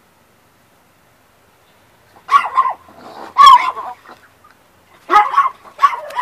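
Four short, loud animal calls, starting about two seconds in.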